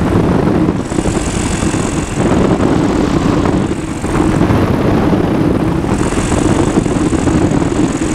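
Flylight PeaBee flexwing microlight trike in flight with its engine throttled back to idle for an engine-idle approach: a steady engine and propeller drone under heavy wind rush.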